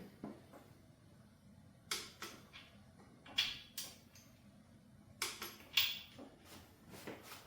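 Click-type torque wrench on the main bearing cap bolts of a 383 stroker small-block, bringing them to 45 foot-pounds: sharp metallic clicks and knocks in small groups of two or three, a few seconds apart.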